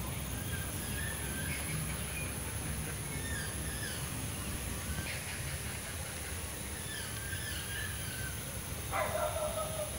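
Birds calling from the trees: a short call falling in pitch repeats every couple of seconds, and a louder call dropping steeply in pitch comes about nine seconds in. A steady high hiss and a low rumble run underneath.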